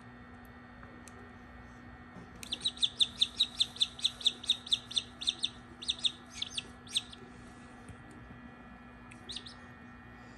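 Australorp chick peeping: a quick run of short, high peeps, about five a second, for some four seconds, then a couple more peeps near the end.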